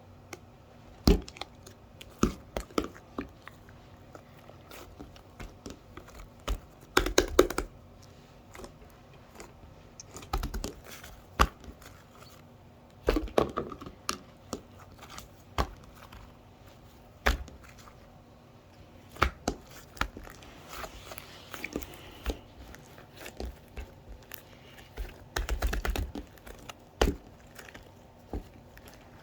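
Close handling sounds: scattered sharp taps and clicks, with a few longer stretches of crinkling, like paper or plastic being handled or torn.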